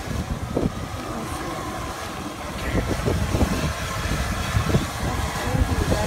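Steam vent of a hot mud pot rushing and sputtering in a steady low rumble that grows louder about halfway through, with wind on the microphone.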